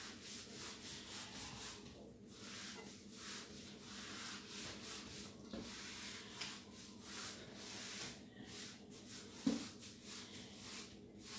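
Whiteboard eraser rubbing across a whiteboard, wiping off marker writing in quick, faint back-and-forth strokes, with one light knock near the end.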